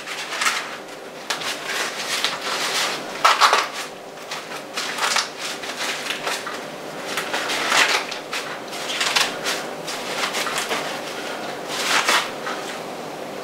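Corn husks rustling and tearing as they are pulled back from an ear of corn and the silk stripped off, in a run of irregular crackly strokes, a few louder tearing pulls among them.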